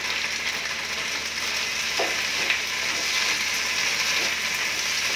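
Paneer, capsicum and onion sizzling in a hot pan while being stirred with a wooden spatula, with a few short scrapes of the spatula against the pan about two seconds in.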